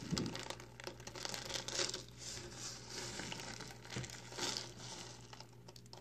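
Dry, crumbly recycled soap pieces crunching and crackling as hands squeeze a handful and let the chunks fall back onto the pile. It is a dense run of small crackles, with louder surges about two seconds in and again past four seconds, tailing off near the end.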